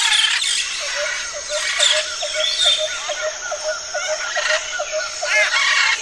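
A chorus of many birds chirping and calling over one another. One bird repeats a short, low note about four times a second from about a second in until near the end.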